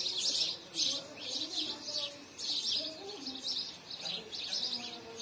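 House sparrows chirping over and over, clusters of high chirps coming about twice a second.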